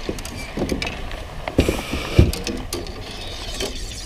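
Fishing rods and gear being handled in a small boat: scattered clicks and knocks, with one dull thump about two seconds in.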